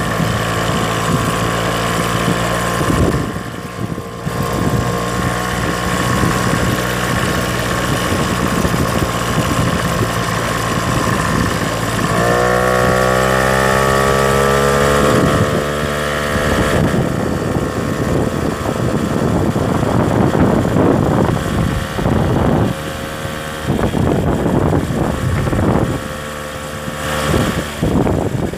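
A vehicle's engine running as it drives along a rough dirt track. The engine pitch climbs steadily about twelve seconds in and falls off about three seconds later, like a gear being held and then changed. Irregular knocks and rattles come through in the second half.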